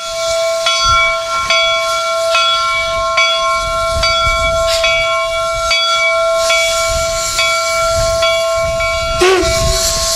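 Steam locomotive whistle held in one long blast, a chord of several tones, over steam hiss. A short knock comes a little more than once a second, and the whistle wavers briefly near the end.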